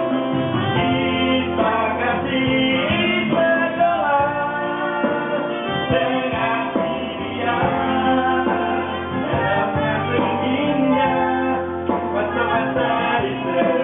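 A man and a woman singing a duet into microphones over instrumental backing music.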